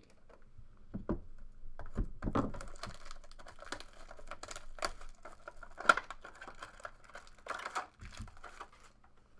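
A few dull knocks of a cardboard card box being pulled from its case, then plastic shrink wrap crinkling and tearing with sharp crackles as the sealed box is unwrapped.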